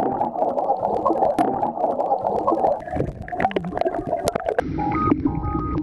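Underwater bubbling and gurgling with scattered clicks, a few gliding sounds in the middle; music with a repeating pattern of synth notes comes in near the end.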